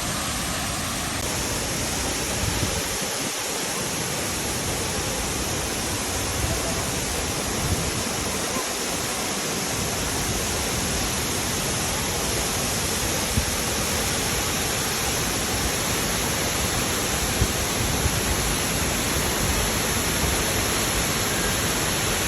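Wachirathan Waterfall on Mae Klang Creek rushing, a steady, even roar of falling water.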